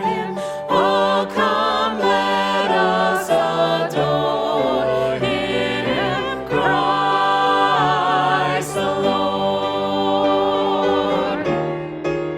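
Choir singing a sustained hymn with vibrato on held notes.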